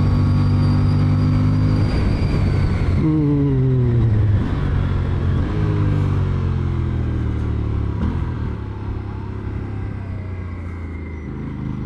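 Aprilia Tuono 457's parallel-twin engine holds steady revs under throttle for about three seconds. The throttle then comes off and the revs fall away gradually, in a few steps, over several seconds, before picking up again near the end.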